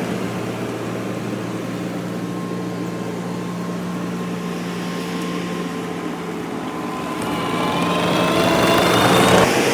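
A machine's engine or motor running steadily, then rising in pitch and getting louder from about seven seconds in.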